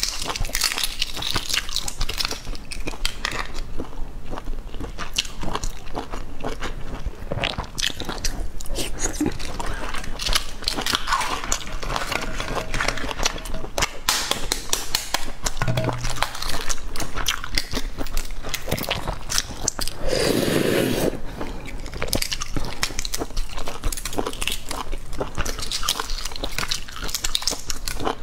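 Shells of boiled eggs being cracked and peeled by hand, a steady run of small crackling clicks, mixed with biting and chewing. About two-thirds of the way through comes a louder, duller bump lasting about a second.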